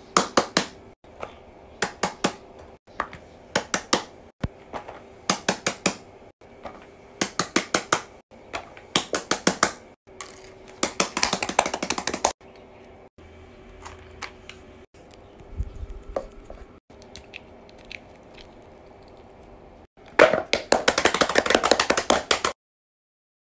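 Fidget toys being handled and tapped on a paper mat: sharp clicks in quick clusters of three or four, with a longer run of rapid clicking about eleven seconds in and again near the end.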